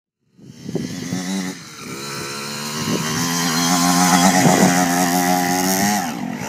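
Dirt bike engine running as the bike rides across a field. It starts about half a second in, eases off briefly about a second later, then holds a steady high note, and near the end the pitch dips and climbs again.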